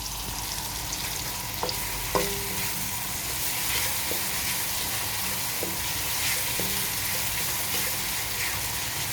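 Food frying in hot oil in a pan, a steady sizzle, with several short knocks of a utensil against the pan as it is stirred.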